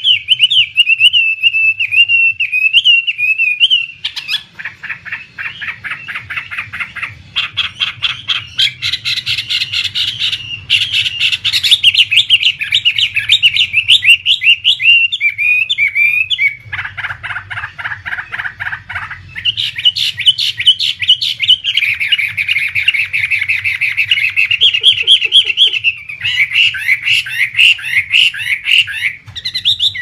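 Hwamei laughingthrushes singing almost without pause: loud, varied phrases of fast trills and slurred whistles, with a lower, harsher rattling phrase about seventeen seconds in. A faint steady hum runs underneath.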